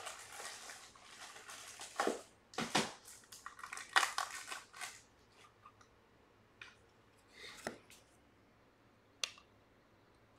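Crinkling plastic rustle as a trading card is handled and fitted into a clear magnetic one-touch card holder, dense for the first five seconds. Then a few light plastic clicks, with one sharp click about nine seconds in.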